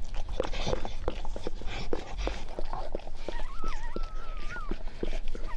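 Weimaraner mother licking her newborn puppy: a quick run of wet licking and mouth smacks. From about three and a half seconds in, a thin, wavering whine runs for over a second.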